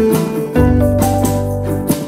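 Instrumental background music with held notes over a deep bass line and a regular beat.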